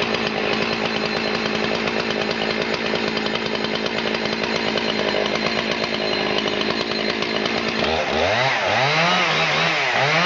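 Husqvarna 272 XP two-stroke chainsaw engine running at a steady speed, then revved up and down several times from about eight seconds in.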